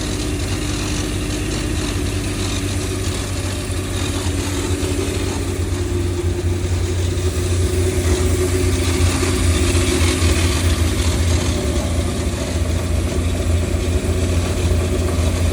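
Holden VN Calais engine running at a steady idle while its timing and base tune are being set. The engine speed rises slightly about five seconds in and then holds steady.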